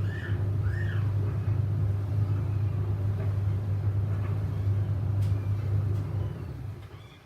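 Samsung washing machine running a 95°C boil wash of tea towels: the drum tumbles with a steady low hum and dies away near the end.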